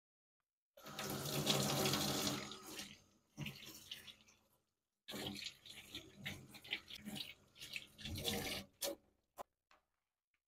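Tap water running into a stainless steel sink, splashing over kombu sheets being rinsed by hand. The flow starts about a second in, dies away briefly around the middle, then comes back as uneven splashing before stopping near the end.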